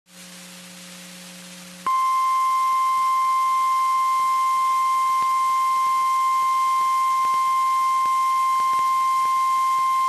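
Emergency weather alert tone, in the style of NOAA Weather Radio's 1050 Hz warning alarm: a single steady, high-pitched tone starts about two seconds in after a low hum and hiss, and holds unbroken. It signals that a tornado warning broadcast is about to be read.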